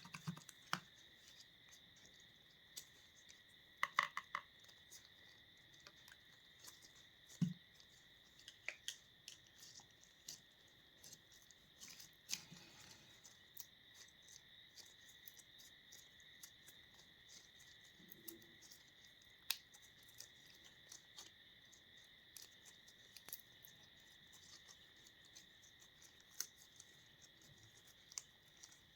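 Slime being pressed and squished: faint, irregular clicks and small pops, a few of them sharper, over a steady high-pitched tone.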